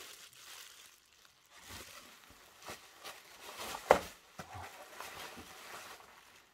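Bubble wrap rustling and crinkling as hands handle wrapped model train coaches, with a sharp click about four seconds in.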